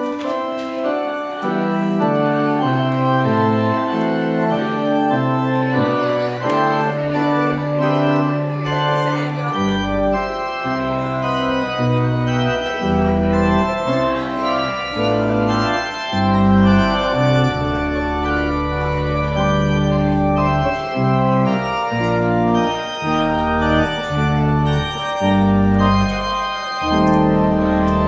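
Church organ playing a postlude of sustained chords that move in steps, with deep bass pedal notes coming in about ten seconds in.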